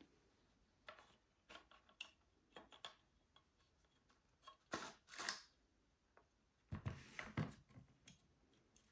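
Faint clicks and scrapes of hands working the clock's perforated rear panel loose and sliding it out of the case. The handling is loudest about five seconds in and again about seven seconds in.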